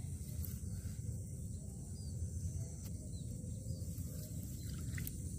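Quiet outdoor ambience: a steady low rumble under a thin, steady high hiss, with a few faint bird chirps.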